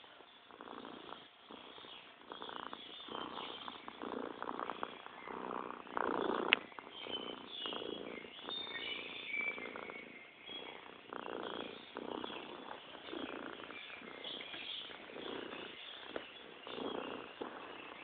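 An animal making a rhythmic sound in repeated pulses about once a second, with one sharp click about six and a half seconds in.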